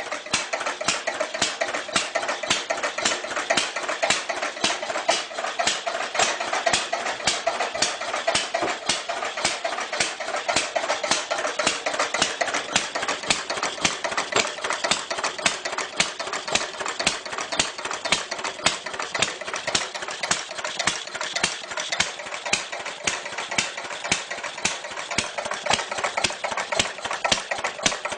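Clunky old engine running steadily at idle, a fast, even clatter of sharp knocks with little deep rumble.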